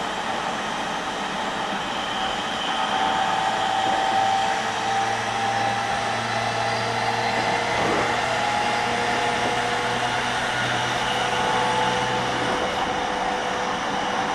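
JR East E231 series electric train running at a steady speed, heard from inside the carriage: an even rumble of wheels on rail with steady electrical hum tones and a single brief knock about eight seconds in. A low hum drops out near the end.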